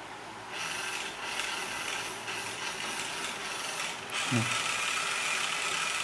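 Remote-control toy car's small electric motor and plastic gears whirring steadily, starting about half a second in, with a click about four seconds in.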